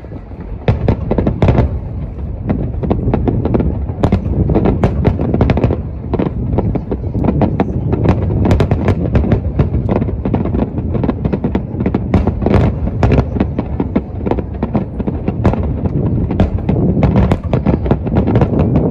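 Aerial fireworks display: a dense, continuous barrage of shell bursts booming over one another, with sharp cracks and crackling on top of a steady low rumble.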